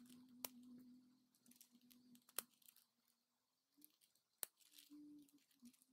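Faint clicks and ticks of 3D-printed plastic parts being handled and pressed together, with three sharper snaps about half a second, two and a half and four and a half seconds in. A faint low hum fades out in the first half.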